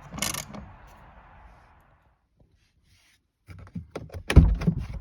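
Handling noises at a car door: a brief rustle, then after a gap a series of clicks and knocks ending in a heavy thunk about four and a half seconds in.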